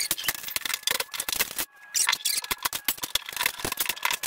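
A dense, rapid run of clicks and knocks from old wood board paneling being handled and pulled off a wall, with a brief break just before two seconds in.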